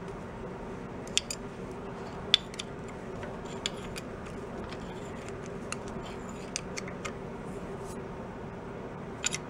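Light metallic clicks and taps, about ten of them spaced irregularly, as small metal parts are handled by hand at the engine, over a steady background hum.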